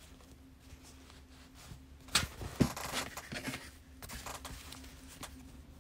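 Sewing materials being handled on a worktable. A little after two seconds in come two sharp taps about half a second apart, followed by about a second of rustling and a few fainter knocks.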